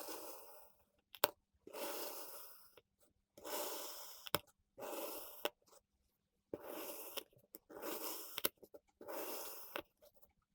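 Kinetic sand being cut: about seven short, gritty slicing strokes, roughly one a second, with a few sharp clicks between them.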